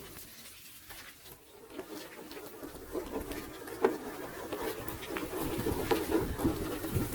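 Small remote-control off-road car's electric motor and gears whirring in uneven spurts, with tyres scraping and clicking over rocks.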